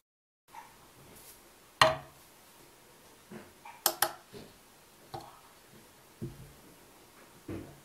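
Dishes knocking and clinking as an empty bowl is set on a small plastic digital kitchen scale and the scale is tared. There is one loud knock about two seconds in, a quick pair of sharp clicks around four seconds, then a few softer knocks.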